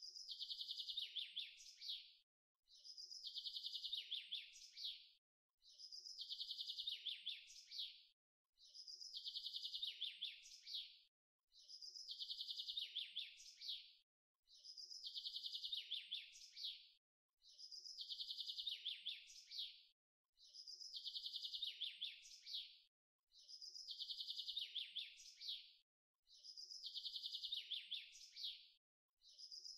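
Sparrow chirping: bouts of rapid high chirps, each about two and a half seconds long, with a short gap between them. The same bout repeats about every three seconds as a loop.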